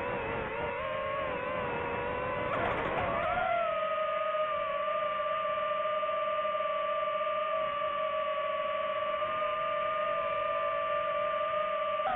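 DJI FPV drone's motors and propellers whining in flight, one steady pitch with overtones. The pitch dips and rises with a brief rush of noise about three seconds in, then holds level.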